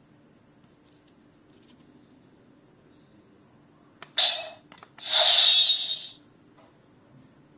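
Two short electronic sound effects from a DX toy's small speaker. The first starts sharply and dies away within half a second, and the second is a noisy burst of about a second.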